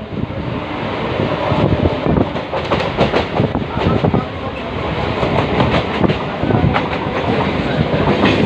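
Passenger train running along the track, heard from inside the coach: a steady rumble and rattle with the irregular clatter of wheels over rail joints.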